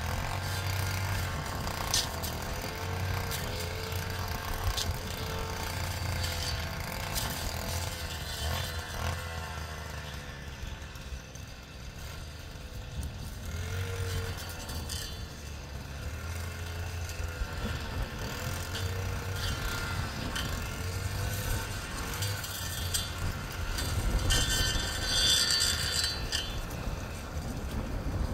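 An engine running, its pitch rising and falling again and again, with clicks and rattles of machinery over it.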